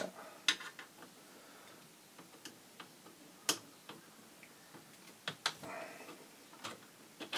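Scattered sharp clicks and taps of a screwdriver working metal parts inside a vintage receiver's chassis as the input selector's linkage rod is worked loose. The clicks come at irregular intervals, the loudest about three and a half seconds in.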